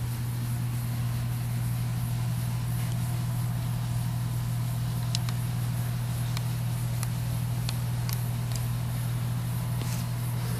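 K'nex ball machine running: a steady low hum from its motor-driven lifts, with a scattering of sharp clicks from about halfway in as plastic balls and lift parts knock against the plastic track and frame.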